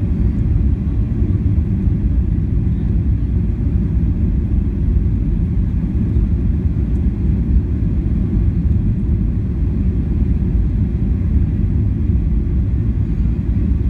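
Steady low rumble of jet engines and airflow heard inside the passenger cabin of a Skymark Boeing 737 descending on approach to land.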